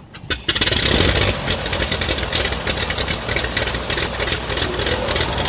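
Piston engines of a light twin-engine airplane running at idle on the ground, the sound coming in abruptly about half a second in after a couple of clicks.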